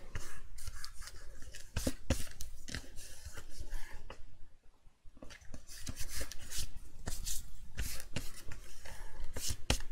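Hands pressing and rubbing card pockets flat onto a card box base, with short taps, rubs and paper rustles against the cutting mat. There is a brief pause about halfway through.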